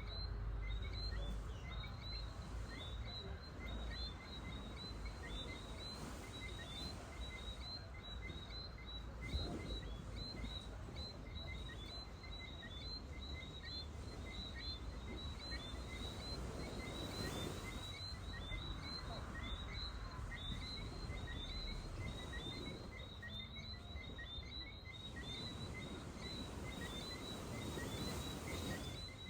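A dense chorus of small whistling frogs, many short high chirps every second without a break, over the low wash of surf on the shore, which swells several times.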